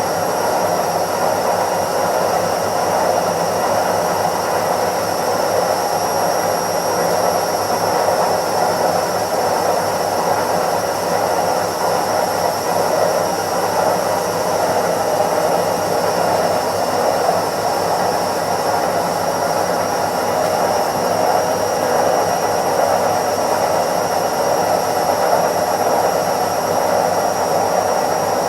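Indesit IWC71252 washing machine on its spin cycle, the drum spinning at a steady speed: an even rushing hum with a thin, high, steady whine above it.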